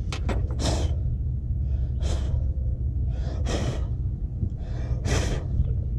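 A man breathing heavily close to the microphone: four breaths about a second and a half apart, over a low steady rumble.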